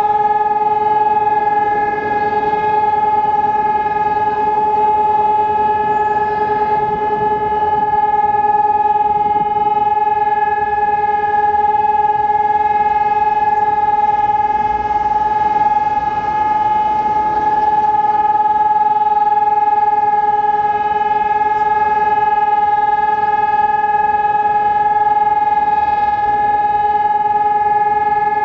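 Civil defence warning sirens (DS 977 and ECN 1200) sounding the steady continuous test tone of the Czech public warning system's monthly test: one loud unbroken tone that holds the same pitch throughout.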